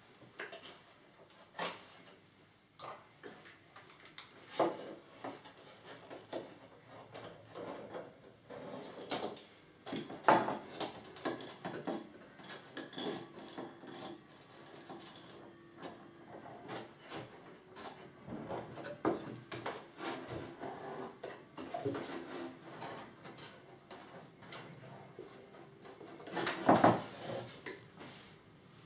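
Wood-and-metal clamps being fitted onto a cello's rib structure and their wing nuts screwed down: scattered clicks, knocks and rubbing of wooden blocks and threaded rods against the ribs and bench, with a louder knock near the end.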